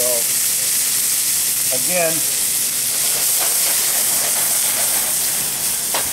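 White seabass fillets and sauce sizzling loudly in a hot pan on a gas burner, a steady high hiss, while the pan is flambéed and flares into flames.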